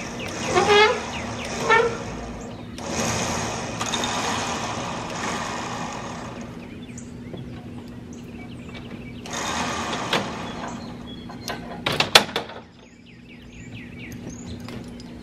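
A steady low engine hum runs throughout, with a rushing noise that swells and fades twice. Two short rising squeals come near the start, and a quick cluster of sharp metallic clicks sounds about twelve seconds in, while the hoist on the log arch is being worked.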